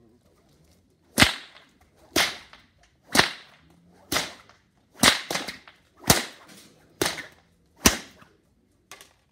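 Plaited whip cracked repeatedly in overhead swings: a run of sharp cracks about one a second, one of them a quick double crack, with a fainter one near the end.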